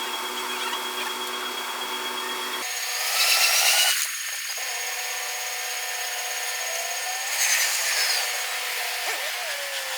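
Electric train passing at a railway level crossing, its traction motors giving a steady, drill-like whine whose pitch steps and glides. There are two louder stretches of wheel-and-rail noise, about three seconds in and again near eight seconds.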